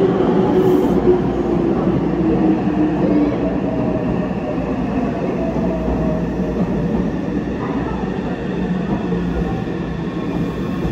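Meitetsu electric train running into an underground station platform and slowing for the stop. Steady wheel and rail noise runs under a motor whine that slowly falls in pitch as the train brakes.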